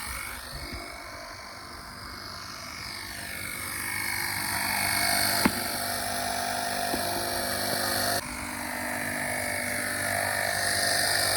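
Steady hum and whine of running machinery, slowly growing louder, with a sharp click about five and a half seconds in and a sudden drop in level a little after eight seconds.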